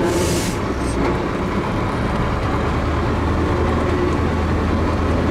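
Ural truck's engine running steadily while fording a fast river, heard from inside the cab, with a steady low drone. A short hiss sounds right at the start.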